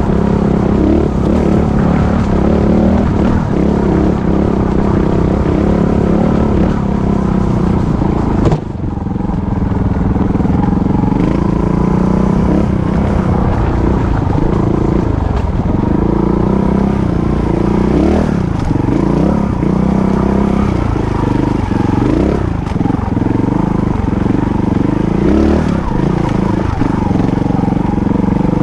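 Off-road motorcycle engine running under load on a rocky climb, its pitch rising and falling with the throttle. A sharp knock a little under a third of the way through, after which the level briefly drops.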